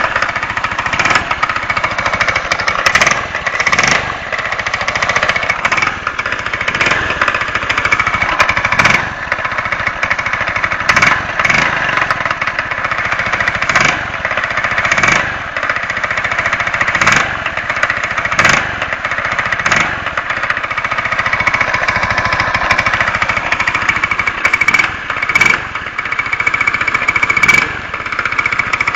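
Engine running with a rapid, continuous knocking.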